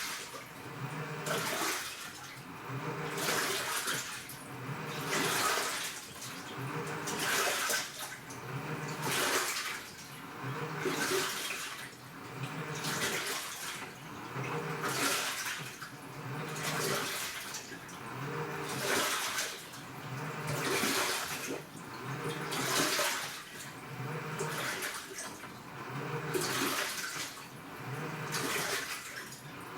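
AQUA top-loading washing machine with an inverter motor, its pulsator agitating about 40 litres of water back and forth. A sloshing swish comes about every two seconds, each with a low motor hum under it.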